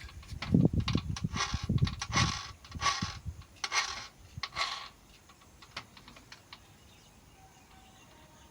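Metal tool parts, a drill chuck and its converter nut, being handled and fitted, giving irregular clicks, knocks and rattles for about five seconds. After that only a few faint ticks remain.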